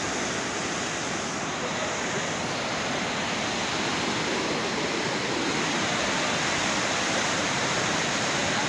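Floodwater rushing and churning through a walled channel and pouring out from under a covered section: a steady, unbroken rush of water.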